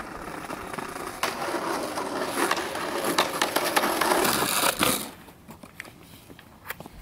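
Skateboard wheels rolling over asphalt with a few sharp clacks, stopping about five seconds in; after that only faint scattered clicks.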